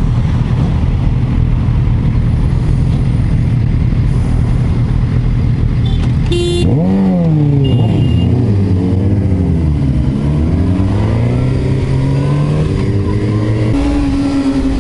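Sport motorcycle engines idle steadily. About six and a half seconds in there is a short high beep. Then the engines rev and pull away, the pitch climbing and dropping several times through the gear changes before settling into a steadier run near the end.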